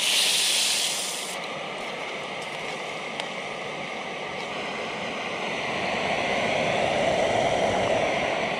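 Water poured into a hot pot of cherry tomatoes frying in oil on a backpacking gas canister stove. It hisses and sizzles loudly for about a second, then settles into a steady bubbling simmer over the hiss of the burner.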